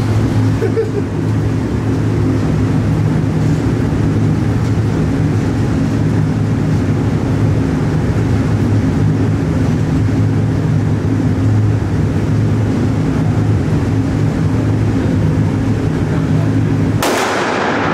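A steady low drone runs under everything, and about a second before the end a single loud, sharp pistol shot cracks out and echoes briefly in the indoor range.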